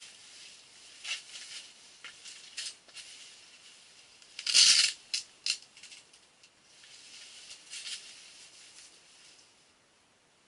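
Rustling and light clicks of clothing and fishing gear being handled, with one louder rustle about four and a half seconds in.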